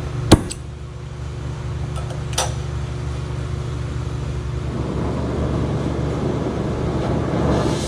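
A handheld gas torch: a sharp click early on and another about two seconds later, then from about five seconds in the flame's hiss starts and grows steadily louder, heating a seized exhaust-flange rivet nut toward red hot. A steady low hum runs underneath.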